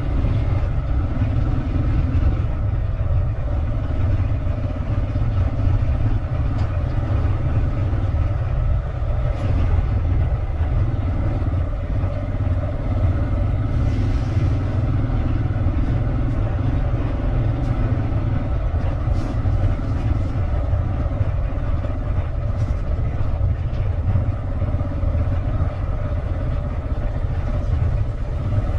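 Steady running noise of a vehicle on the move: an even engine drone with a heavy low rumble that does not change.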